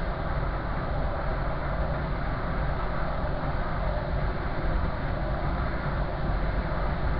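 Train running along the line, a steady running noise heard from inside the front cab.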